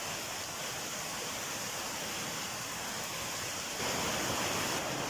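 Waterfall of more than ten metres, rushing water in a steady hiss that gets louder a little after three and a half seconds in.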